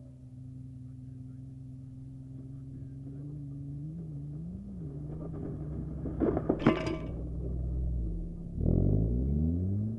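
Race car engines on a grass track: a steady engine hum, a quick cluster of sharp knocks about six to seven seconds in, then a car passing close with its engine note falling in pitch.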